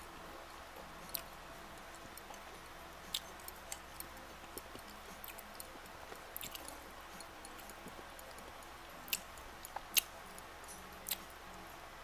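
Close-miked chewing with the mouth closed: scattered soft wet mouth clicks and smacks, a dozen or so, the strongest near the end, over a faint steady hum.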